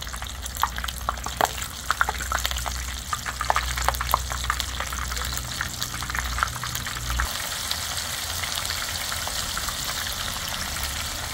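Batter-coated eel bones deep-frying in a pan of hot oil: sharp pops and crackles at first, thickening into a dense, steady sizzle as more pieces go into the oil.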